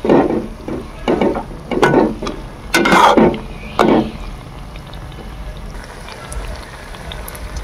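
Slotted metal ladle scraping against a metal kadai as banana slices are turned in hot ghee, several strokes in the first four seconds, the loudest about three seconds in. After that the ghee sizzles steadily around the frying slices.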